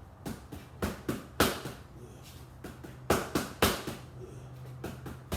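Gloved boxing punches landing on a padded target in quick combinations: a run of about five hits, a pause, then a few more.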